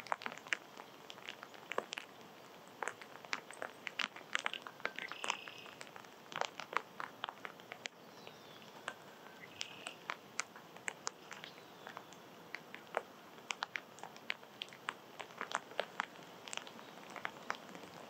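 Small animals feeding, cracking and pecking at seeds: irregular sharp clicks and taps, several a second, with two short chirps about five and ten seconds in.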